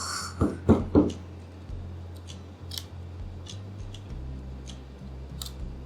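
Clear plastic jigsaw puzzle pieces being handled, clicking and tapping against each other and the board. A few sharper knocks come about half a second to a second in, followed by light, scattered clicks.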